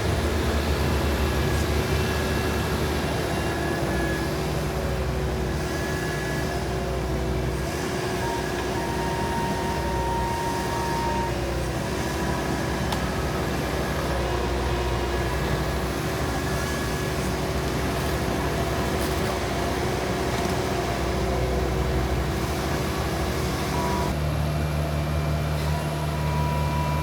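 Menzi Muck spider excavator's engine running steadily. Its low hum shifts to a different note near the end.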